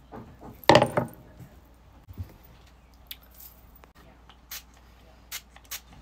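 Handling noise close to the phone's microphone: a loud rustling knock about a second in as a hand and plastic hairbrush sweep past, then a few light clicks and clatters of small objects being handled.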